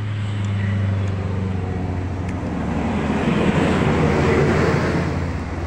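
Motor vehicle engine running close by with a steady low hum, and a swell of engine and road noise from about halfway through that eases near the end, as a vehicle passes on the road.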